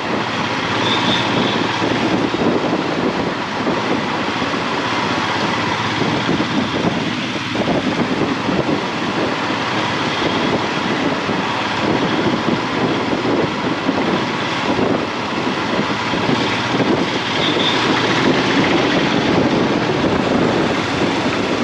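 Steady rushing noise of a motorcycle ride through slow car traffic: the bike's engine, tyres on the road and surrounding vehicles blend into one continuous drone.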